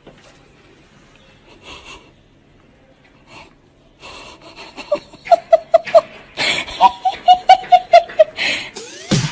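A person laughing hard in quick, rhythmic bursts with gasping, wheezy breaths between them, starting about four seconds in.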